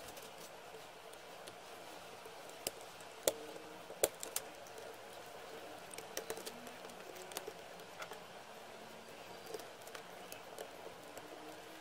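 Scattered small clicks and taps of metal and plastic as a 2.5-inch laptop drive in its metal caddy is pressed into the laptop's drive bay and connector and nudged with a plastic pry tool. The loudest clicks come around three and four seconds in, over a faint steady hum.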